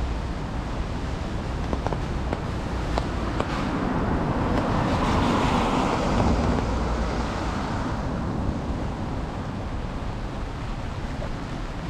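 A taxi passing on a wet road: the hiss of its tyres on the wet asphalt swells, peaks around the middle and fades away, over a steady low rumble.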